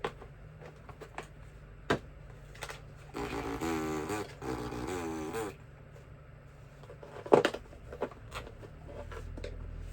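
Scattered plastic clicks and knocks of screwdriver bits being handled and fitted into their case, the sharpest about two seconds in and about seven seconds in. From about three to five and a half seconds in, a wavering, squeaky sound.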